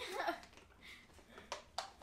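Slime being stirred and handled in plastic cups: a few soft, short clicks and squelches, after a brief bit of voice at the start.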